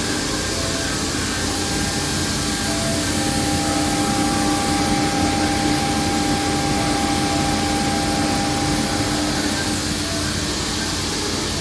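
CNC machines running in a machining workshop: a steady whirring noise with a held machine tone that stands out for several seconds in the middle.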